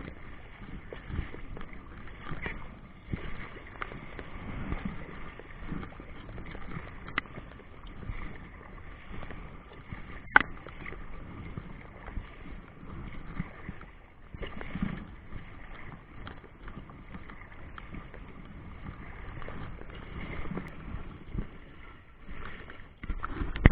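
Choppy river water lapping and slapping, with small irregular knocks throughout, a sharp click about ten seconds in and a louder thump near the end.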